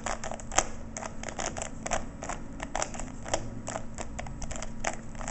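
A plastic Rubik's Cube being twisted by hand, its layers clacking as they turn in an irregular run of sharp clicks, several a second.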